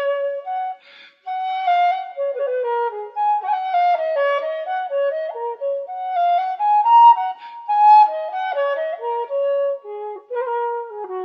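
Background music: a solo woodwind melody of short notes stepping up and down.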